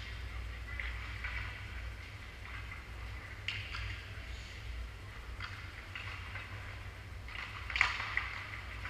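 Ice hockey rink sound: skate blades scraping on the ice, with a few sharp clacks of sticks or puck, the loudest near the end, over a steady low hum.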